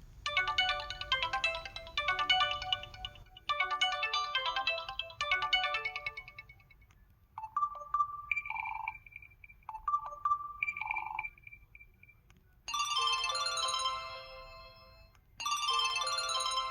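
Samsung SPH-W7100 mobile phone ringtones playing: a short chiming electronic melody sounds twice in the first six seconds, then a pair of two-note beeps, then a bright chord-like chime twice near the end.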